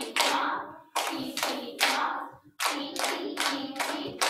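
Children clapping rhythm patterns built from ta and ti-ti rhythms, as a rhythm chain is clapped and echoed. The claps come in short phrases with brief breaks about one and two and a half seconds in.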